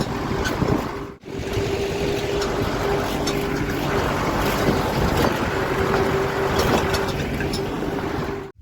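An engine running steadily with a whining tone, under loud wind rush over the microphone.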